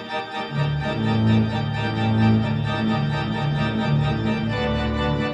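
Church organ playing the postlude: sustained chords, with low bass notes joining about half a second in.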